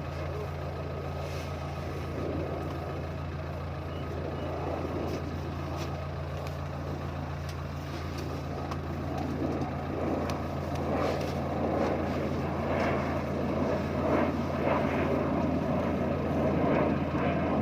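Rice combine harvester running with a steady engine drone. A noisier mechanical rattle builds up over the second half.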